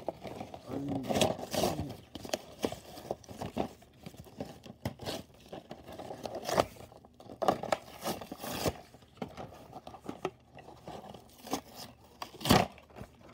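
Cardboard toy box and its packaging being opened and handled: irregular crinkling, scraping and tearing with scattered sharp clicks, as the toy engine is worked out of the box. One sharp snap near the end is the loudest sound.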